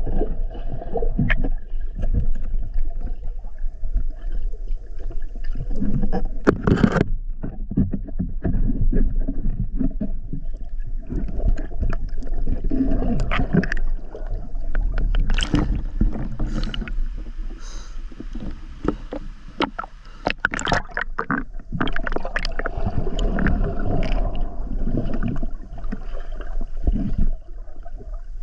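Muffled underwater sound through a waterproof camera housing: water rushing and gurgling around the swimming diver, with a low rumble and many scattered clicks and knocks.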